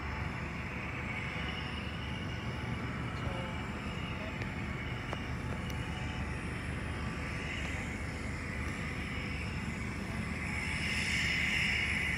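Cessna 208B Caravan's turboprop engine running as the plane taxis: a steady rumble with a high whine that grows louder near the end.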